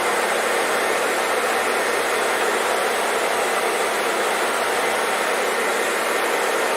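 Hair dryer blowing steadily: an even, unbroken rush of air with a faint motor hum beneath, used as white noise to soothe a baby to sleep.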